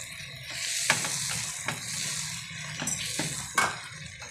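Chicken, onions and ground spices frying in hot oil in a pan, sizzling steadily while a spatula stirs them, with several sharp knocks and scrapes of the spatula against the pan.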